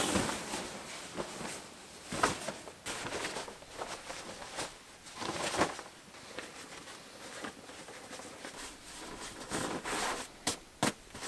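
Bivy bag fabric rustling and swishing as it is pulled up, rolled tight and stuffed into a sack, in irregular handling noises with a few short sharp clicks near the end.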